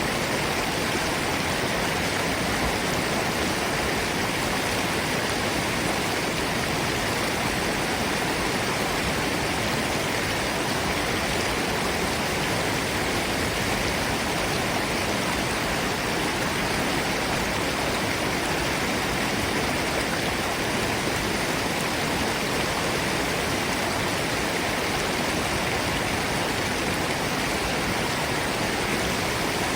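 Forest stream and waterfall: water rushing and splashing over rocks in a steady, unbroken hiss.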